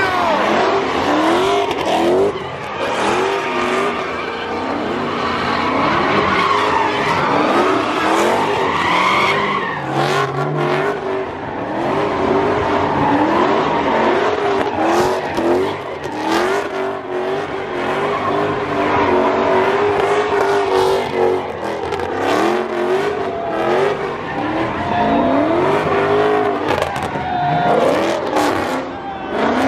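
Dodge muscle cars doing donuts: engines revving hard, the pitch climbing and dropping again every second or two, with tires squealing as they spin on the pavement.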